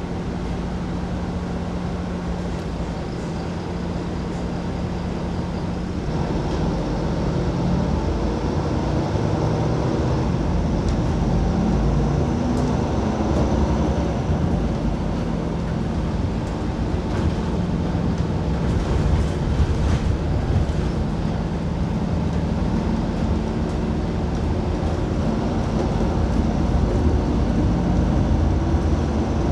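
A city bus heard from on board: the engine runs under road noise. Its note holds steady for the first few seconds, shifts about six seconds in, then rises and falls as the bus speeds up and slows.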